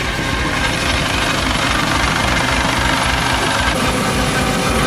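US Coast Guard MH-65 Dolphin helicopter hovering low overhead: a loud, steady rush with the fast beat of the rotor underneath.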